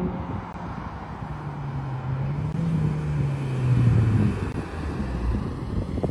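A Ford Fiesta ST150 Mk6's 2.0-litre four-cylinder engine and exhaust accelerating past. The note climbs, then drops in pitch as the car goes by, and it is loudest about four seconds in.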